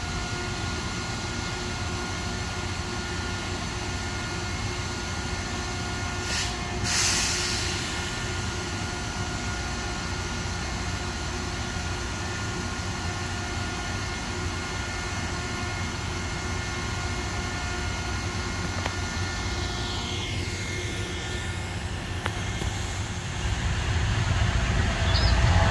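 Loram rail grinder's diesel engines idling steadily with a steady hum, and a short hiss about seven seconds in. Near the end a louder, deeper engine rumble comes in as a Loram grinder approaches on the track.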